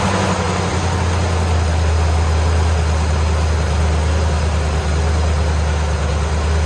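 1957 Chevrolet's carbureted V8 engine idling steadily, heard close up from over the open hood.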